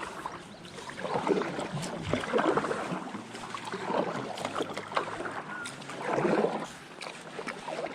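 Water splashing and sloshing around a kayak, in several noisy swells a second or two apart.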